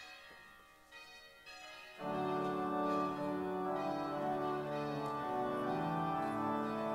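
A bell rings faintly a couple of times. About two seconds in, an organ comes in loudly and plays a hymn in slow, held chords.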